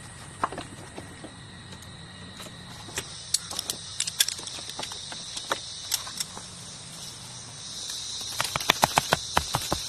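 Steady high-pitched insect drone, like crickets, growing stronger near the end. It is overlaid with scattered sharp taps and clicks that come thick and fast in the last two seconds.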